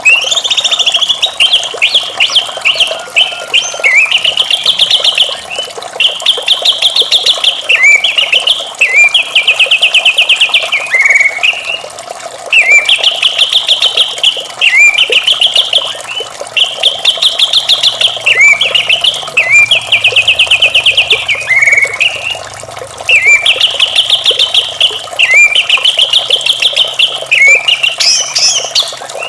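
White-rumped shama singing the same loud phrase over and over, about every two seconds: a fast buzzy trill that ends in a note swooping downward. A steady wash of running water lies under the song.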